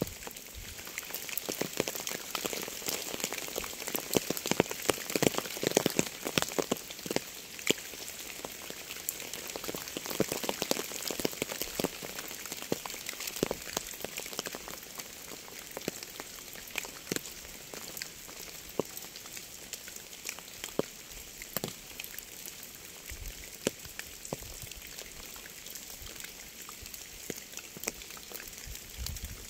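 Steady rainfall, with many individual drops tapping sharply on a surface over a continuous hiss of rain. The drop hits are heavier and denser in the first third, then settle into a steadier patter.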